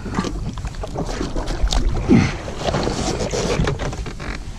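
Wind buffeting the microphone on open water, with water slapping against the jet ski and scattered knocks from handling on board.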